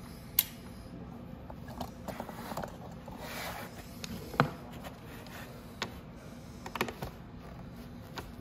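Scattered clicks and knocks of hand tools, bolts and panels as the footwell is being unbolted from an electric ATV. One knock about four seconds in is the loudest, and there is a brief rustle just before it.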